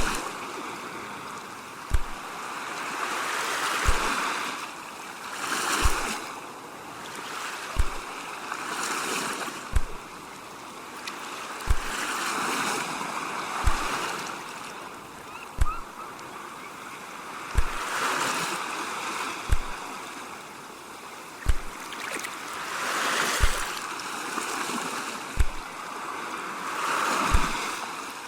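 Ocean waves washing in and receding in slow swells of surf hiss. A soft low thump repeats evenly about every two seconds underneath.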